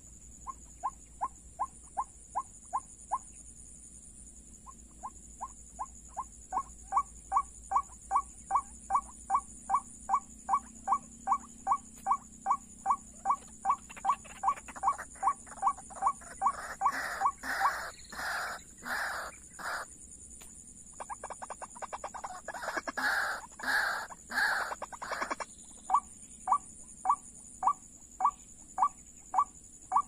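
White-breasted waterhen calls played as a lure: a long run of short, evenly repeated notes, about three a second. In the middle they give way to louder, harsher calls for several seconds, then the short notes return near the end.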